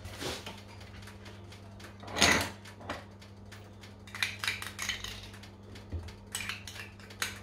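Metal spoon clinking and scraping against a small ceramic dish while sauce is scooped out and spread onto a tortilla, with one louder knock about two seconds in, over a faint steady low hum.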